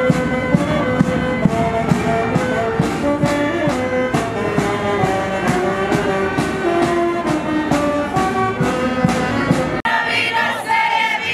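Small street band of saxophone and drum playing a tune over a steady drumbeat. About ten seconds in it cuts suddenly to voices singing.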